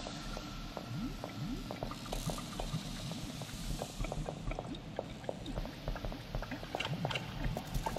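Psybient electronic music intro: a dense texture of many quick pops and clicks, some sliding up in pitch like bubbles, over a low pulse.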